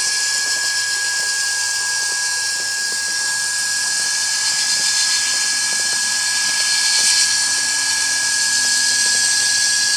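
A cotton candy machine's electric motor drives the spinner shaft through a V-belt and pulleys, running steadily with a high whine over a hiss. The sound is still a little noisy because the new bearings and motor are not yet run in.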